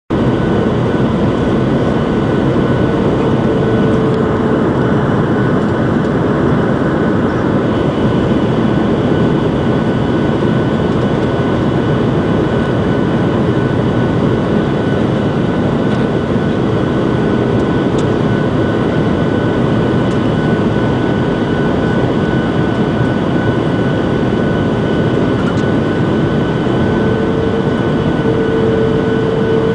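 Cabin noise inside a Boeing 737-700 on approach: the steady rush of airflow and the hum of its CFM56-7 turbofan engines. A thin steady whine runs throughout, and a lower tone swells briefly about three seconds in and again near the end.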